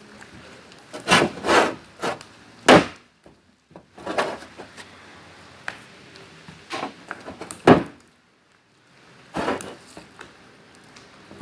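Sticky homemade slime being kneaded and pulled off the hands, in irregular short rubbing, peeling noises a second or two apart. The slime is still too sticky and has not yet set.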